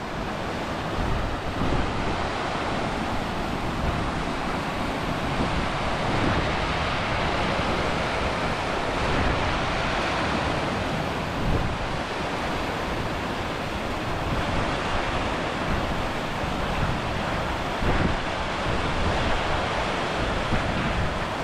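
Steady rushing of a small mountain stream cascading over rock, mixed with strong wind gusting on the microphone.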